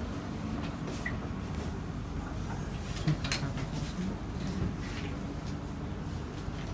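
Passenger doors of a Kawasaki–CSR Sifang C151A train sliding shut, meeting with a sharp knock about three seconds in, over the steady low hum of the carriage.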